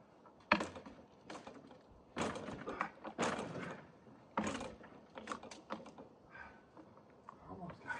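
A string of irregular heavy thuds, knocks and scrapes, the sharpest about half a second in and a cluster between two and five seconds, as a log and steel mill parts are handled by hand on a manual sawmill.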